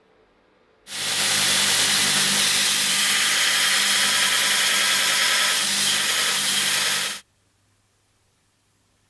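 Belt grinder running with the end of a stainless steel rod held against the abrasive belt: a steady grinding hiss over the motor's hum. It starts abruptly about a second in and cuts off abruptly about six seconds later.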